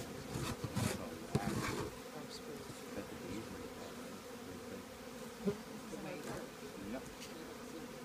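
Honeybees buzzing around an open hive in a steady hum. In the first two seconds a steel hive tool scrapes a few short strokes across the wooden hive top, clearing old residue.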